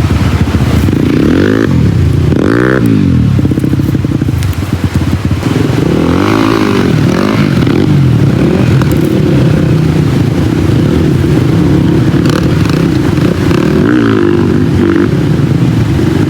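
Dirt bike engine running loud and steady, with several quick throttle blips that rise and fall in pitch.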